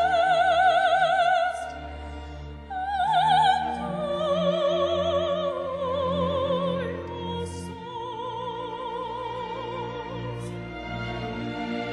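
A classical solo soprano singing long held notes with wide vibrato, accompanied by a string orchestra.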